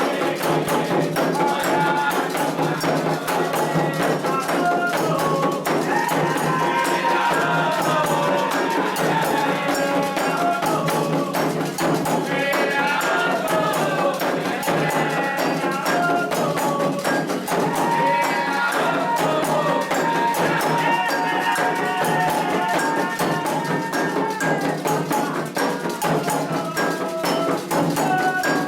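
Candomblé toque for Iansã: atabaque hand drums and a metal bell playing a steady, driving rhythm. Voices sing a chant over it in two long stretches, from about six seconds in and again in the second half.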